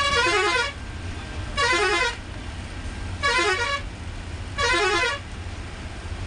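Bus horn sounding four times in a row, about a second and a half apart. Each blast is a short warbling phrase of changing pitch, heard over the steady rumble of the bus engine and tyres.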